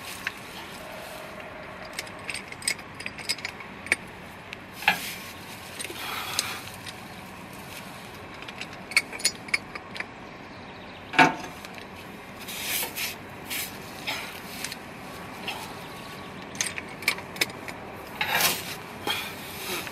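A 3/4-inch ratchet and socket turning a 4-foot helical earth anchor into the ground by hand, the anchor now stiff enough to need the ratchet: scattered ratchet clicks, rubbing and metal clanks in uneven strokes, the loudest a sharp clank about halfway through.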